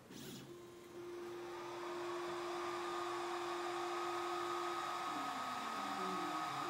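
Algolaser DIY kit 5 W diode laser engraver at work: a steady whir from the laser module's cooling fan that comes up over the first couple of seconds, with the stepper motors giving a held whining tone that breaks into rapidly shifting pitches about five seconds in as the head moves through its engraving path. A short click right at the start.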